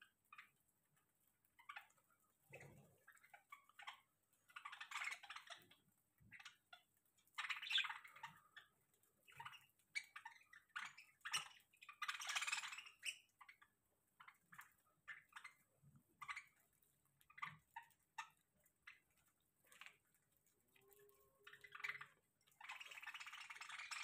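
A flock of budgerigars feeding on seed: faint scattered clicks and pecks, broken by a few short bursts of harsh chatter.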